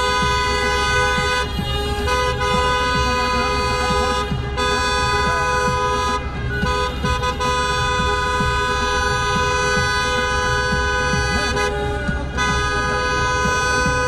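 Car horns held down in long, steady blasts with a few short breaks: celebratory honking from a wedding car convoy, over the low rumble of the cars driving.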